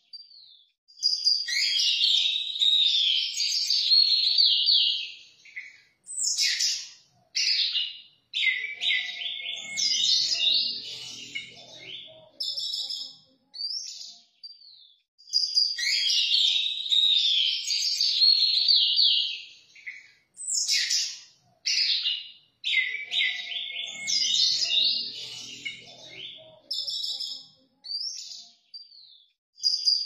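Orange-headed thrush singing loudly in long, varied phrases of rapid whistles and trills, broken by short pauses. A similar song sequence recurs about a quarter-minute later.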